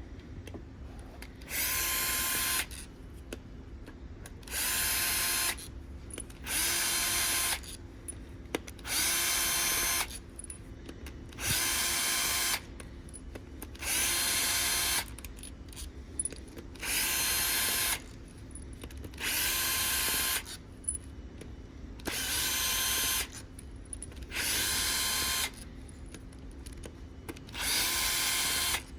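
Electric drill spinning a socket to back out the bolts of an engine's camshaft bridge, in about eleven short bursts of roughly a second each, every two seconds or so, each a steady whine.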